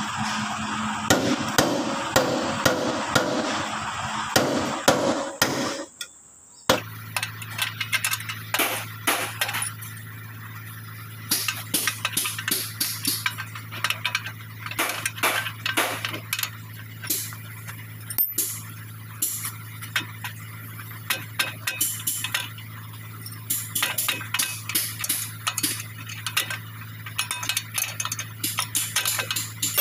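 Wrench clicking and clinking against bolts on a Landini DT85 tractor's front axle: many sharp, irregular metallic ticks over a steady low hum. A denser, louder stretch comes first and cuts off about six seconds in.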